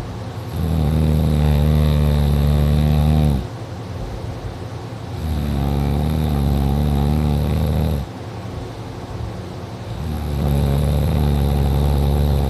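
Loud snoring that sounds like a tractor: three long, rattling snores about five seconds apart, each lasting nearly three seconds, with quieter breaths between.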